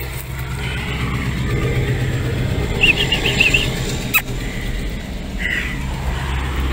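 Steady low rumble of road traffic from a nearby highway, with a brief run of high chirps about three seconds in and a single click a second later.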